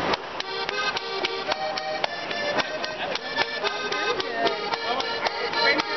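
Bavarian folk dance music with steady held tones, over which a Schuhplattler dancer's hand slaps on thighs, knees and shoe soles, along with foot stamps, crack out in a quick rhythm.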